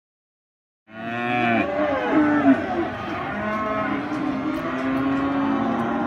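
Silence for about the first second, then many penned weaner cattle mooing and bellowing, with several calls overlapping at once.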